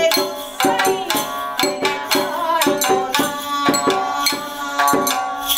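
Japanese min'yō folk song: a shamisen struck with a plectrum in a brisk, even beat, with a woman's singing voice held over it.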